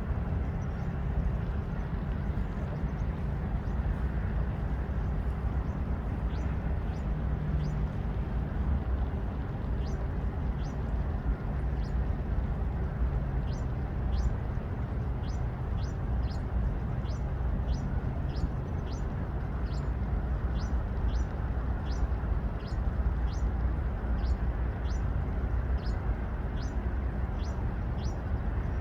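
A small bird calling over and over with short, high, falling chirps, about two a second, starting a few seconds in and growing steadier. Under it runs a steady low rumble.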